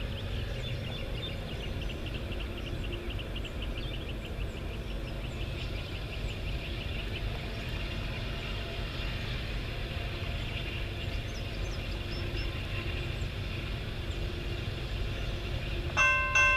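Low, steady rumble of an approaching diesel-hauled freight train led by a Union Pacific SD70ACe-T4 locomotive. Near the end the locomotive's bell starts ringing, about three strikes a second.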